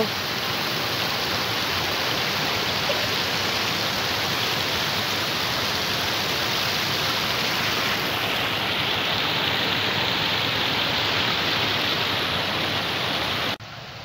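Canal water pouring over a low concrete weir, heard close up as a steady rushing and splashing. It drops away abruptly just before the end.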